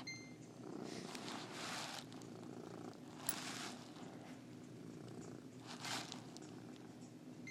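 Domestic cat purring steadily, with a few soft swishes over the purr.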